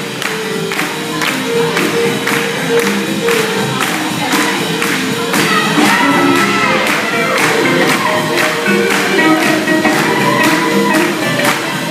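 Live swing jazz band, with guitar, playing an up-tempo tune for lindy hop dancing, with a steady, regular beat.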